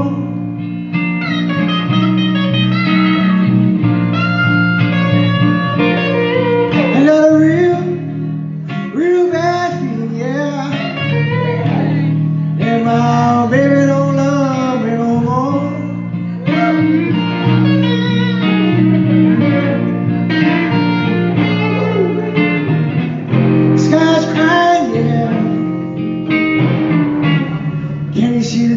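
Blues played live on guitar: bending lead lines over a steady low accompaniment.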